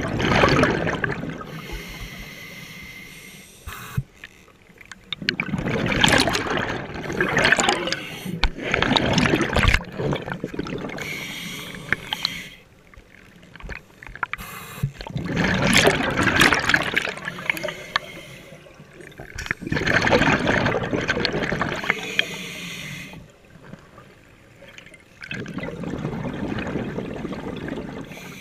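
A scuba diver breathing underwater: gurgling rushes of exhaled bubbles from the regulator in repeated bursts a few seconds apart, with quieter stretches between them.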